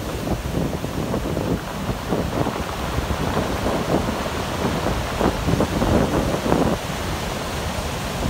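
Rough sea surf breaking and rushing up over sand and pebbles beside a wooden groyne, in a steady wash with repeated surges. Wind buffets the microphone with a deep rumble.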